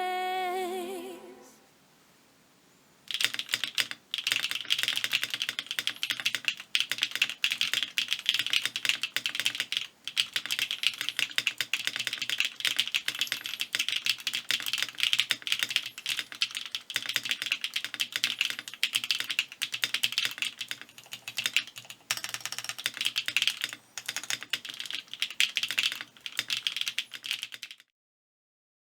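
Typing on a Southpaw75 custom mechanical keyboard with HMX Macchiato linear switches, an FR4 plate and JTK HSA Hyperfuse keycaps: a fast, continuous run of keystrokes. It starts about three seconds in after music fades out and stops abruptly near the end.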